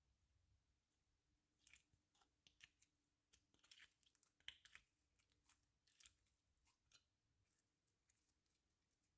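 Slime being squished and stretched by hand: a run of faint, irregular sticky clicks and pops, busiest in the middle and thinning out near the end.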